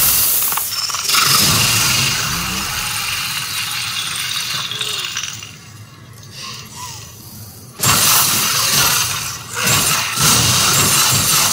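Ice shattering into shards, a film sound effect of a frozen figure bursting apart under a dagger strike, starting suddenly and loud. It eases off for a moment, then a second loud burst of shattering and crumbling breaks out about eight seconds in.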